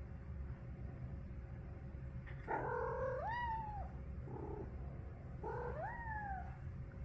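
A cat making two drawn-out, talking-like calls a couple of seconds apart, each rising then falling in pitch, with a short low sound between them.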